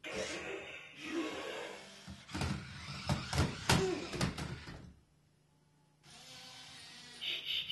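Prime-8 toy robot gorilla driving itself across a hardwood floor: motor and gear noise with its plastic body rubbing and knocking on the wood, a run of sharp knocks in the middle. It stops suddenly about five seconds in, and a fainter sound follows with a brief brighter burst near the end.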